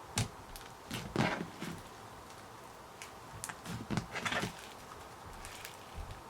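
Foam-bead slime being squished and stretched by hand: scattered soft sticky pops and crackles, with a cluster about a second in and another around four seconds in.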